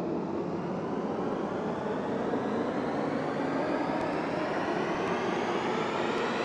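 Riser sound effect: a dense rushing noise that slowly and steadily climbs in pitch.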